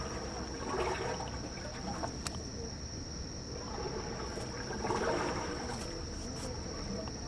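Insect trilling on one steady high note, with soft water sounds swelling twice, about a second in and again around five seconds in.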